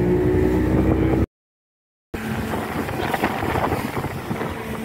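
Speedboat engine running at speed with wind buffeting the microphone. The sound drops out completely for under a second about a second in, then returns as rough wind noise over a steady engine hum.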